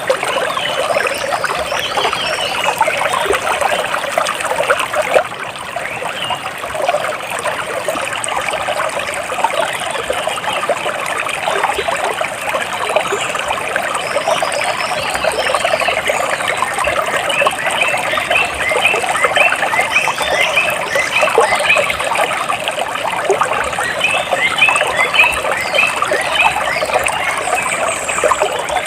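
Water splashing and trickling steadily, with birds calling over it in runs of short repeated chirps, more of them in the second half.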